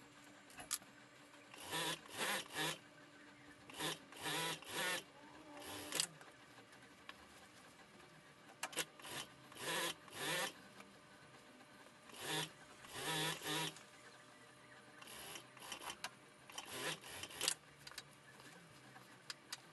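Wool suiting fabric rustling and brushing under the hand as it is smoothed and shifted on the sewing-machine table, in short strokes that often come in twos and threes.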